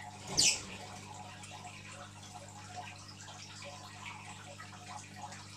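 Aquarium running with a steady low hum and a faint trickle of water and bubbling. About half a second in comes one short, loud splash-like burst.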